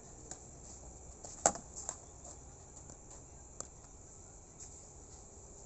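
Badminton rackets striking a shuttlecock during a rally: a few sharp hits, the loudest about a second and a half in, with lighter ones before and after. Behind them, a steady high-pitched chirring of crickets.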